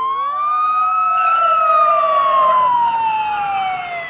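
Police car sirens wailing: one long wail climbs for about a second and a half, then slowly falls in pitch, with a second siren sounding under it for the first couple of seconds.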